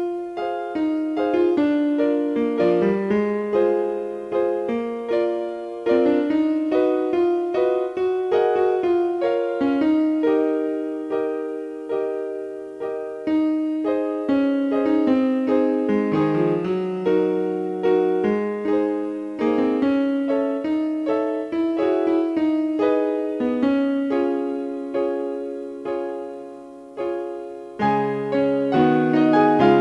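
Solo piano playing a classical piano sonata: a melody of struck notes moving over held lower notes and chords.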